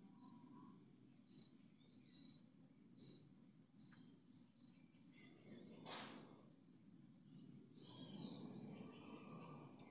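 Faint insect chirping, a regular high-pitched pulse about three times a second, over a low outdoor rumble. A short hiss comes about six seconds in.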